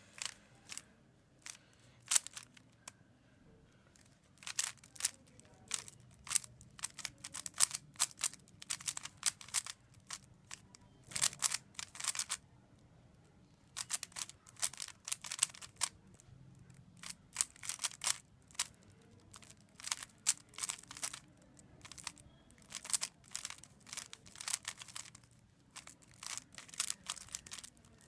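Plastic layers of a stickerless 3x3 speedcube clicking and clacking as they are turned in fast runs, broken by a couple of pauses of a second or two.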